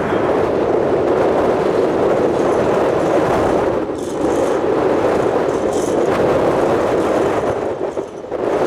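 Steady rushing jet noise of an arriving wide-body airliner on approach, mixed with gusting wind on the microphone, dipping briefly twice.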